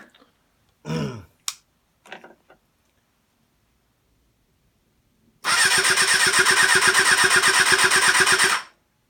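Kawasaki ZXR four-cylinder engine being turned over on its electric starter for about three seconds, with no carburettors fitted, making a fast, evenly pulsing cranking whirr that starts about halfway in and stops suddenly. It is cranked to build oil pressure.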